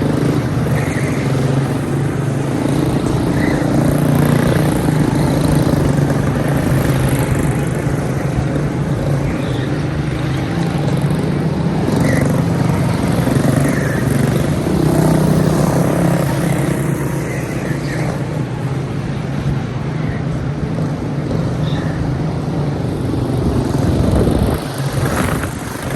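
Racing go-karts with Briggs & Stratton Animal four-stroke engines running around the track during a race, the engine note rising and falling as karts pass and change speed.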